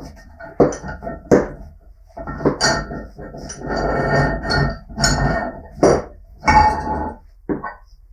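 Metal knocking on metal in irregular strikes, about eight in all, each leaving a short metallic ring, with a longer scraping clatter around the middle.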